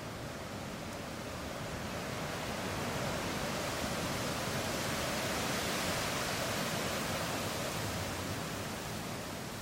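A gust of wind rustling through fresh green leaves and branches. It swells to a peak midway and then eases off.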